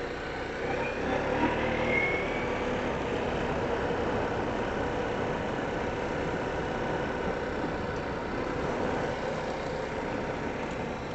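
Four-wheeler (ATV) engine running steadily as it rides along a trail, picking up a little in the first couple of seconds and then holding an even pace.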